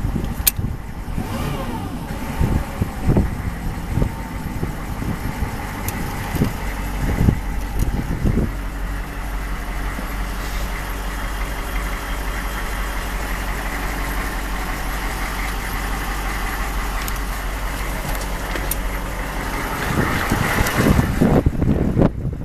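Chevrolet utility truck engine idling steadily at about 800 rpm. Low knocks and thumps sound over it during the first eight seconds and again near the end.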